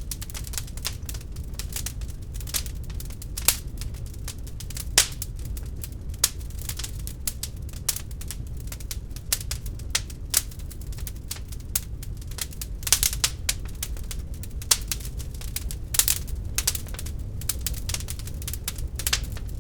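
Wood fire burning in an open fireplace: irregular sharp crackles and pops over a steady low rumble, with a few louder pops scattered through.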